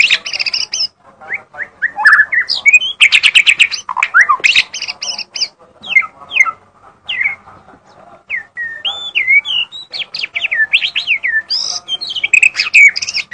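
White-rumped shama (murai batu) singing vigorously: a varied, unbroken run of loud whistled notes that slide up and down in pitch, with a fast rattling trill about three seconds in.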